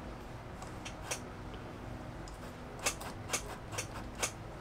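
Polaris Sportsman's left-hand thumb throttle lever being pressed and let go with the engine off, giving about five sharp mechanical clicks, most of them in the last two seconds. The clicks are the throttle springing back to fully closed, showing the cable returns completely.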